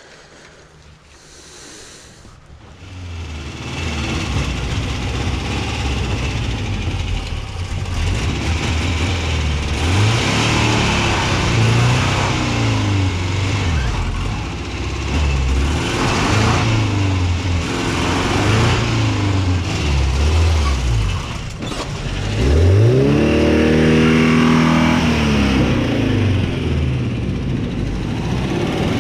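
Subaru Brat's engine revving up and down over and over under load while pushing a heavy van, getting louder a few seconds in; the biggest run-up, a rev that rises and then falls, comes about 23 seconds in.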